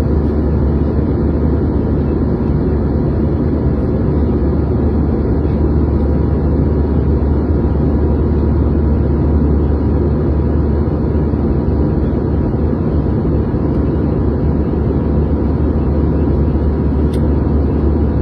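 Jet airliner cabin noise in cruise: a steady low rumble from the turbofan engines and the airflow, unchanging in level.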